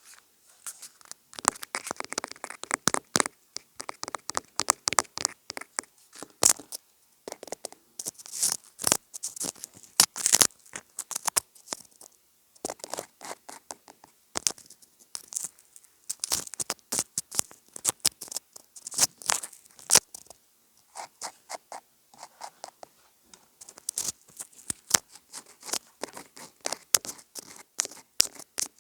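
Close-miked ASMR triggers on a homemade object: rapid irregular tapping, clicking and scratching in dense bursts, with short pauses between them.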